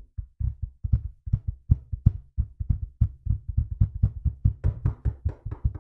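Rapid, irregular knocking on a door, several blows a second without a pause.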